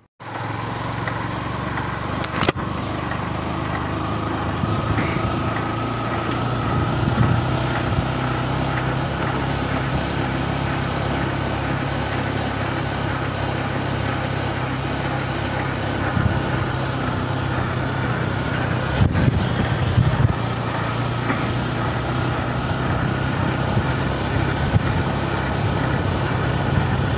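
Yamaha FZ V3 motorcycle's single-cylinder engine running steadily while being ridden, its note holding an even pitch throughout.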